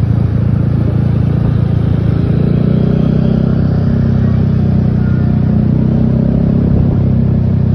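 A bus's diesel engine running steadily with a low, even drone.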